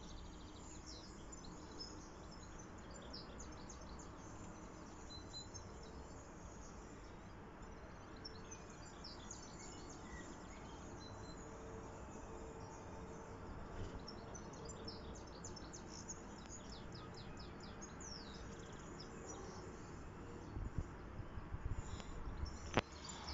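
Outdoor ambience of birds chirping and singing in short bursts over a steady hiss, with a few sharp clicks near the end.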